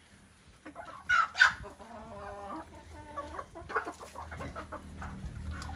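A flock of chickens clucking as they feed, with two sharp loud calls about a second in, followed by a longer drawn-out call and more short clucks.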